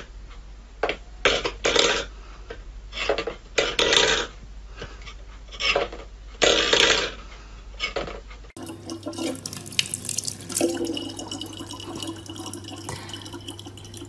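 A steel pet bowl clattering and scraping on a wooden floor in a string of short, irregular rattles as a cat paws at it. A little past the middle this gives way to a thin stream of water pouring from a dispenser spout into a plastic water bottle, over a steady low hum.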